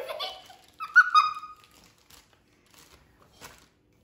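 A young girl laughing, with a short high-pitched squeal about a second in, followed by a few faint knocks.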